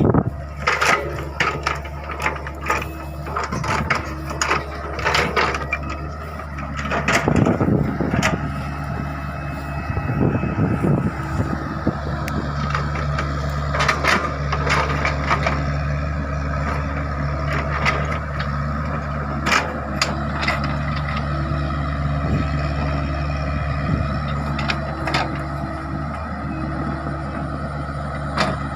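Excavator's diesel engine running steadily under working load, with repeated sharp knocks and cracks as it works and stacks debris, most frequent in the first several seconds.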